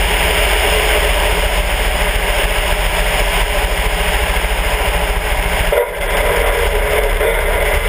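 Sonex light aircraft's Volkswagen-based engine running, with heavy wind rush over the outside-mounted camera, as the plane comes down onto the runway and rolls during a touch-and-go. The steady sound dips briefly about six seconds in.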